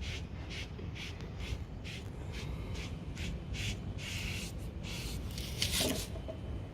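Short swishing strokes of a brush or rag on wood, about two to three a second, applying water-based stain, with one longer, louder stroke near the end over a steady low hum.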